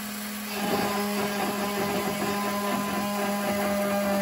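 Homemade CNC router running a G-code job: the router spindle motor hums steadily, and about half a second in the stepper motors join with a whine of several tones as the end mill moves down toward the wood.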